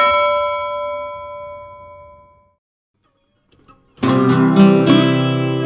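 A single bell-like chime struck once and ringing out, fading away over about two and a half seconds. After a short silence, background music with plucked acoustic guitar starts about four seconds in.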